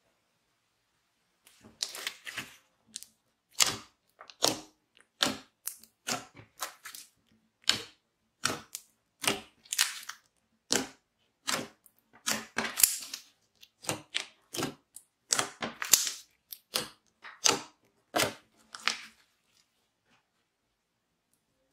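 Clear glitter slime being pressed and squished by hand on a tabletop, giving sharp, crackly pops and clicks as trapped air bursts, over and over at about one or two a second; they start about a second and a half in and stop shortly before the end.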